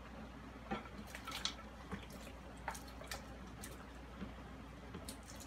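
Thick yellow soup squelching and dripping in a metal pan as meat is pressed and stirred into it with an upturned plastic bowl, with a few soft, irregular clicks and splashes.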